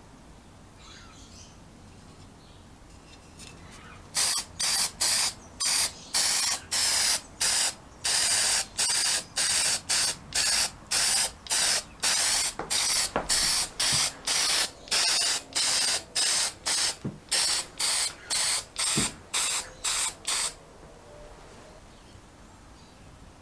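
Rust-Oleum Appliance Epoxy aerosol spray can spraying paint in short hissing bursts, about two a second, starting a few seconds in and stopping suddenly near the end.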